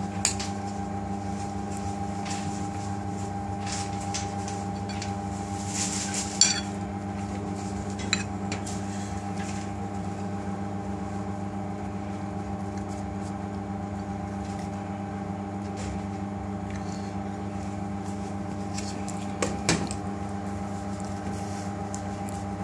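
Steady mechanical hum of kitchen equipment, with a few light clinks and scrapes of a serving spoon on a ceramic plate as rice is spooned onto it.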